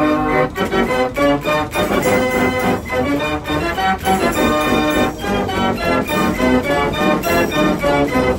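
Organ music playing a lively tune, with many changing notes over a quick, regular beat.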